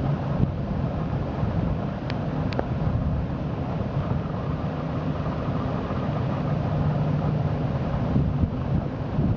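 Boat engine running slowly with a steady low hum, wind buffeting the microphone; two short ticks about two seconds in.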